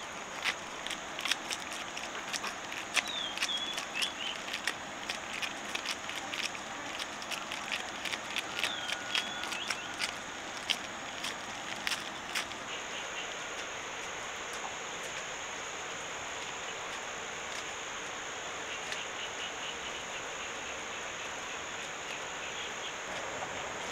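Steady high insect drone with irregular clicks and crackles, like steps through dry brush, through the first half, and two short high chirps. About halfway through the crackling stops, leaving the insect drone over a soft steady hiss.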